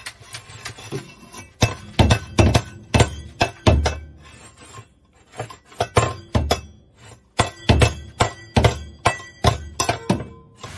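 A bird tossing and shoving a stainless-steel bowl and a small wooden block across a hard floor: an irregular run of clanks and knocks, the metal hits ringing briefly, with a short lull just before the middle.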